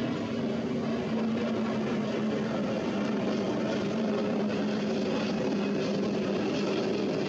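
Jet airliner's engines running, a steady rushing noise with a low hum held underneath.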